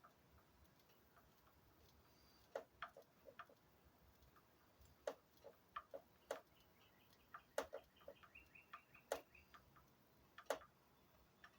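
Near silence with faint, irregularly spaced small clicks and taps: a paintbrush and small parts being handled during a paint touch-up.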